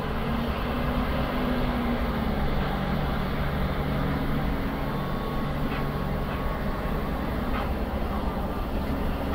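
Steady low engine rumble with a hum, heard from inside a car cabin, from the vehicles and ferry working on the quay.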